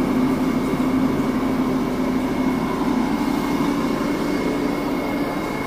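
Steady machine hum: a constant low drone with a faint high whine above it, unchanging throughout.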